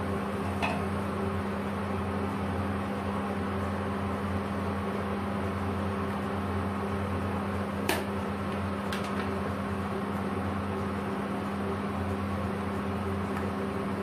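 Steady low electric hum with a fan-like rush from an electric cooktop running under a simmering pot of rice soup. A few light clicks cut through it, the sharpest about eight seconds in and another a second later.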